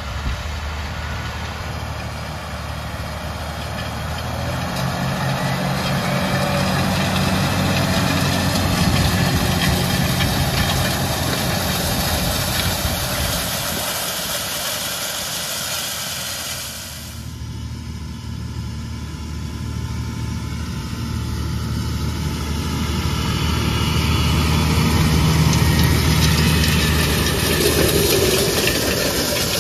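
John Deere tractor diesel engine running steadily during field work, its loudness swelling and easing slowly; the sound changes abruptly a little past halfway through.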